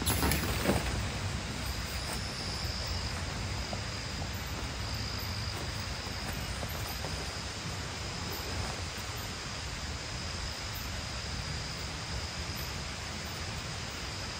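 Steady forest ambience: an even outdoor hiss with a faint, high, wavering insect drone. There is a single knock from a tent stake being hammered under a second in.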